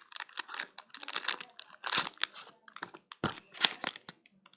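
Irregular clicks, taps and rustles of objects being handled close to the microphone, with a few louder knocks about two seconds in and again past three seconds.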